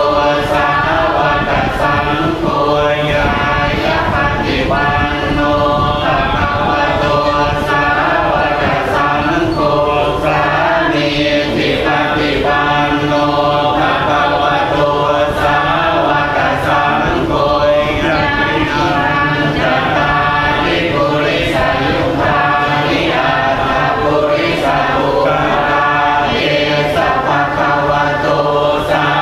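Buddhist devotional chanting in Pali: a monk and a group of voices chanting together in a steady, melodic, unbroken unison.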